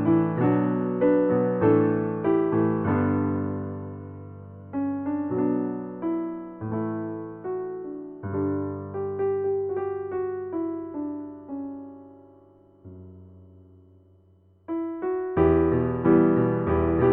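Background piano music: slow struck notes, each dying away. About two thirds through it fades nearly to silence, then comes back louder near the end.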